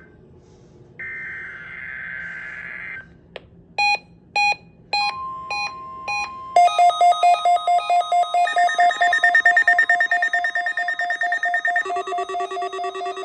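Emergency Alert System test tones. A raspy two-tone digital SAME header data burst runs from about one to three seconds in. A few separate electronic beeps follow. From about halfway through, a rapidly pulsing electronic alert tone sounds at about five pulses a second, changing pitch twice.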